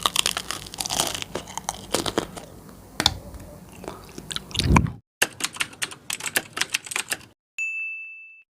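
Close-miked eating sounds: bites, chewing and sticky, crackly mouth noises from eating jelly and ice cream, cut off abruptly a little past halfway and resuming briefly. Near the end a short, steady high electronic tone sounds, then the audio goes silent.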